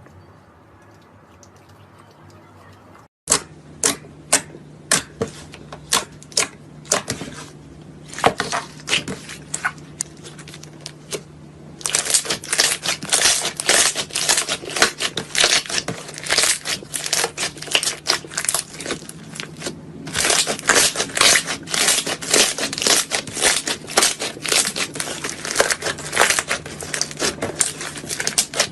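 Slime being squeezed and poked by hand, making a long run of sticky clicks and pops. The clicks begin suddenly about three seconds in and come one by one at first, then pile up into a dense crackle from about twelve seconds in, with a brief lull near twenty seconds.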